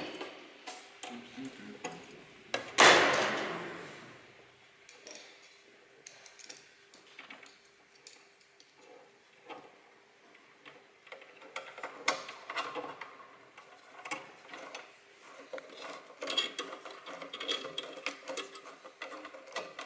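Hand tools and metal parts being worked during a teardown: scattered small metallic clicks and ticks, with one loud metal clank about three seconds in that rings briefly. The clicking gets busier near the end.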